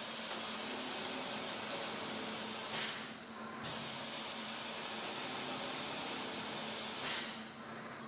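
Automatic four-shaft BOPP tape slitting machine running: a steady hiss over a low hum as the rotary cutter slices a spinning log roll of tape. Twice, about four seconds apart, comes a short louder swish followed by a lull of under a second. This is the cycle of one cut finishing before the head moves to the next.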